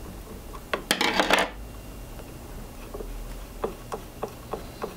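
A metal T-handle Allen key clatters down onto the machine table about a second in, followed by a string of light sharp clicks as the old bracket is worked loose by hand.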